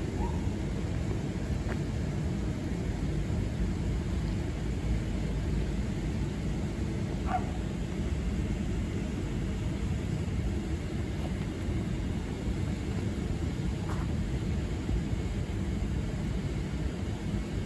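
Steady low outdoor rumble with no distinct engine or train sound, broken by a few faint short chirps.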